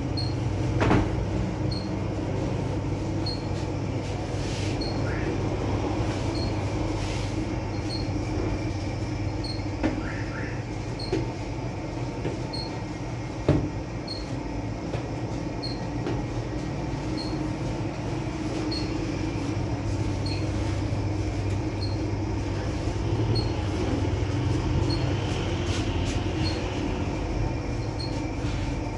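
Steady low rumble and hum of running bakery equipment, with a faint regular tick about every two-thirds of a second. A few short knocks come through it, the sharpest about a second in and near the middle.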